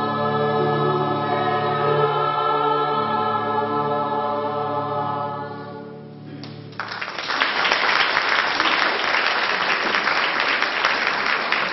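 Polyphonic choir singing held chords that die away about six seconds in, then the audience breaks into applause.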